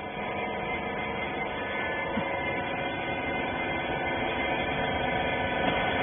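Steady hum of a rag baler machine's motor running, with several level tones held throughout and growing slightly louder near the end.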